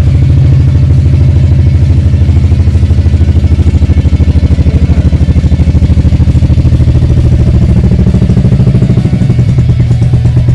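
A 1982 Royal Enfield Bullet 350's cast-iron single-cylinder four-stroke engine idling with a steady, even thump, roughly eight to ten beats a second. The beat shifts slightly near the end.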